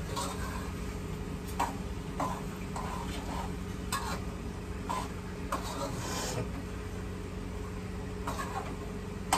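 Spoon stirring macaroni in a cooking pan: short scrapes and taps against the pan every second or so, over a steady low hum.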